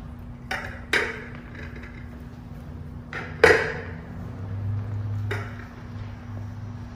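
Brass communion plates being set down and stacked, about five metallic clinks, each with a short ring. The loudest comes about halfway through.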